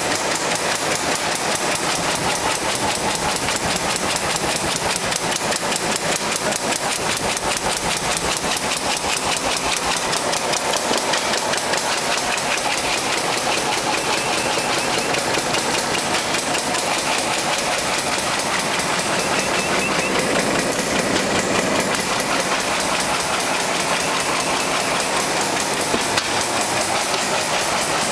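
High-speed side sealing bag-making machine running: a rapid, steady clatter from its repeating seal-and-cut cycle as plastic bags are fed out onto the conveyor.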